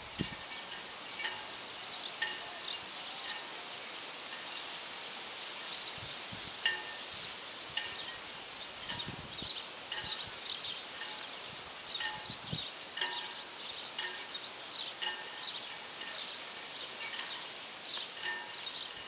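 Birds chirping: many short, high calls in quick clusters throughout, over faint outdoor background noise.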